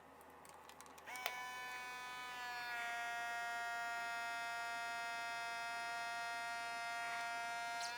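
Navage nasal irrigator's battery-powered suction motor switching on with a click about a second in and whining steadily as it draws saline through the nose. A couple of seconds later the whine drops slightly in pitch and gets a little louder.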